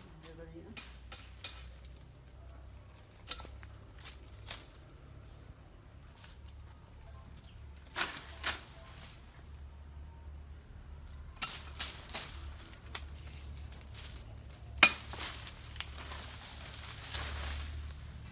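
Scattered sharp snaps and clicks from a tree's branches being gripped and pulled by hand, with a stretch of leaves rustling near the end.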